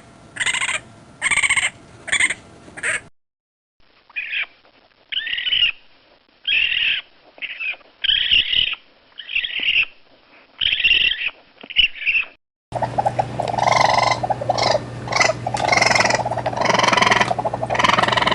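Raccoon vocalizations from three recordings cut together: first a run of short calls about two a second, then a series of calls roughly one a second, then a denser stretch of louder, overlapping calls over a steady low electrical hum.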